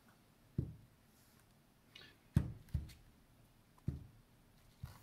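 Handling noise as a small metal avionics display unit is turned over in the hands: five soft, short thumps and knocks, two close together about halfway through, with a few faint clicks.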